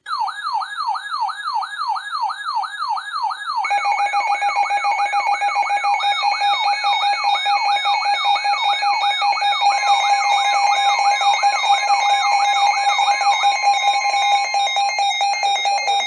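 Several NOAA weather alert radios sounding their alarms for an incoming warning: one gives a warbling siren-like sweep, about two and a half sweeps a second, and about three and a half seconds in others join with steady and pulsing beeps. The warble stops a couple of seconds before the end while the beeping goes on.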